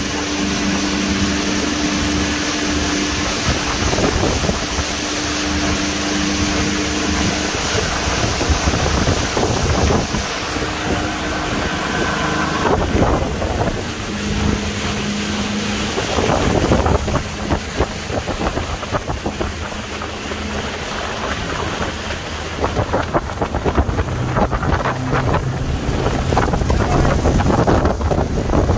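The 150 hp outboard motor of a Sea Hunt 210 Ultra center-console boat running under way at speed, with wind buffeting the microphone and water rushing past the hull. The engine note shifts about halfway through, and the wind and water noise grows more gusty toward the end.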